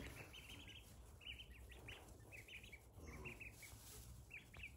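A brood of mallard ducklings peeping faintly: short high peeps in quick runs of three or four, over a low steady hum.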